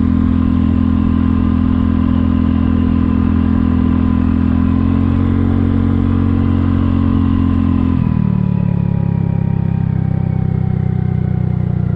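Kymco People 250 scooter's single-cylinder four-stroke engine and slip-on exhaust running steadily at cruising speed, around 50 mph. About eight seconds in, the engine note drops and keeps easing down as the throttle comes off. The muffler-to-down-pipe gaps are sealed with JB Weld high-heat putty, and it sounds quieter.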